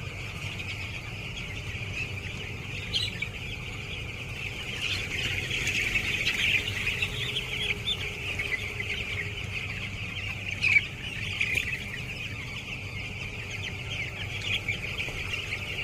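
A large flock of ten-day-old chicks peeping continuously, many high calls overlapping into a dense chorus that swells for a few seconds mid-way. A few short, sharper sounds stand out, the loudest about eleven seconds in, over a steady low hum.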